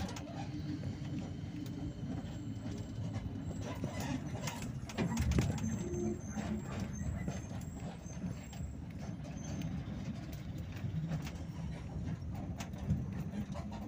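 Bus running, heard from inside: a steady low engine and road rumble with frequent rattling clicks, swelling louder about five seconds in.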